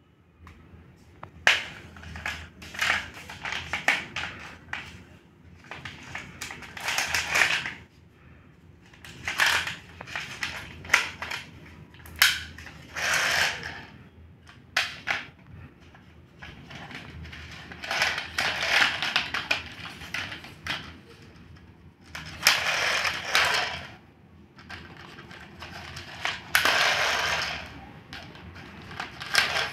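Hard plastic toy parts being handled on a tile floor: irregular clicks, knocks and scraping rustles as a plastic toy scooter is turned over and pulled at by hand.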